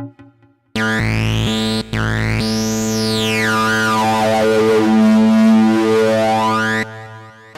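Sylenth1 software synthesizer preset playing a held synth chord whose tone sweeps bright and back down, starting about a second in and stopping shortly before the end.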